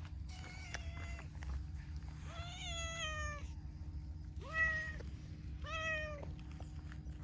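Pastel (dilute) calico cat meowing four times. The second meow is the longest and slides down in pitch, and the third is the loudest.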